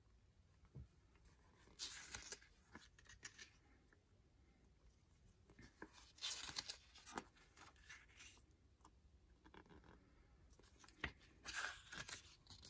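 Pages of a CD lyric booklet being turned by hand: faint paper rustling in a few short bursts, about two seconds in, around six to seven seconds, and again near the end.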